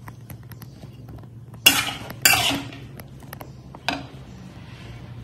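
Metal spatula-spoon scraping and clattering against a metal pan while scooping out slices of boiled beef: two loud scrapes about a second and a half in, then one sharp clink about four seconds in.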